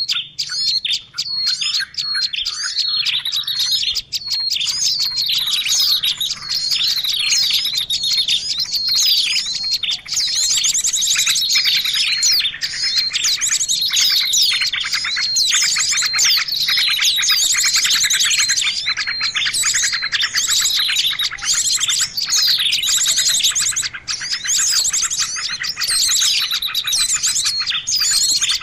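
Dense, unbroken chatter of many small songbirds: overlapping high chirps, quick trills and rapid repeated notes. It is a mixed small-bird lure call played to draw wild birds in.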